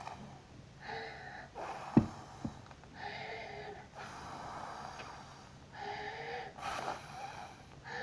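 A child blowing hard through a drinking straw into a blob of fart putty slime in long wheezy puffs, four of them, with breaths between. Two sharp clicks come about two seconds in, the first the loudest sound.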